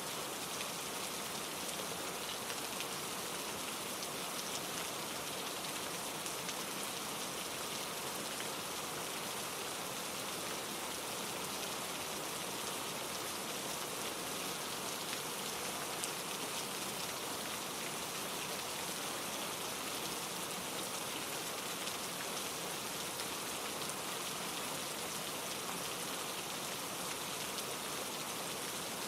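Steady rain pattering on leaves and rocks, blended with a mountain stream tumbling over granite boulders: an even, unbroken hiss that neither rises nor falls.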